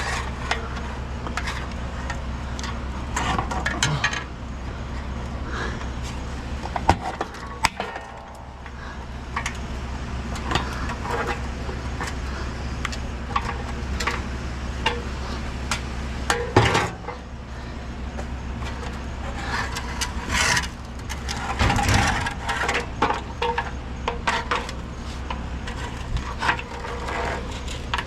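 Scattered knocks, rattles and clatters of objects being handled, over a steady low hum.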